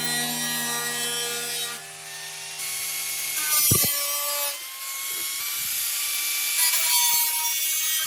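Repeated rasping, scraping strokes of a tool working material, over background music with long held notes.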